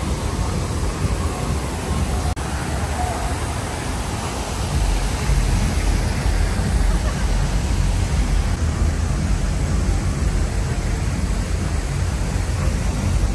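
Steady rushing and splashing of water jets from a large ornamental fountain, over a low rumble of street traffic.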